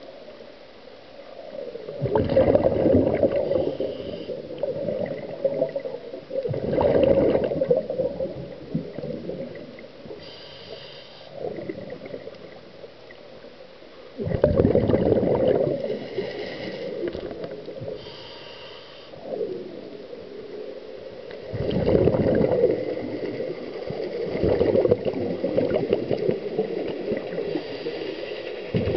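Scuba regulator breathing underwater: each exhale sends out a loud burst of bubbles lasting a second or two, about every five to seven seconds, with fainter hiss in between.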